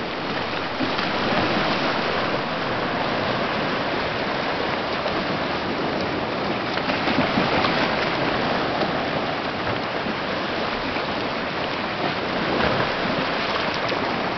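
Steady wash and splash of shallow sea water over a flat rock shelf, stirred by a dog wading and swimming through it, a little louder about halfway through and again near the end.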